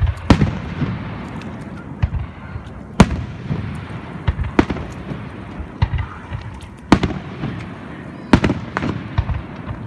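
Aerial firework shells bursting: a series of sharp bangs a second or two apart, the loudest right at the start, about 3 s in, and near 7 and 8.5 s, with smaller pops and crackles and a low rumble in between.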